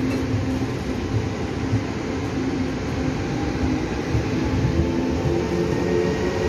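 Taiwan Railway Tze-Chiang express train pulling out of the station, with a steady rumble and a low hum that grow slightly louder toward the end.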